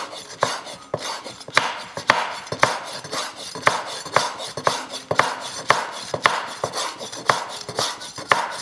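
Kitchen knife finely slicing green chilli on a cutting board: a steady run of knife knocks, about two a second.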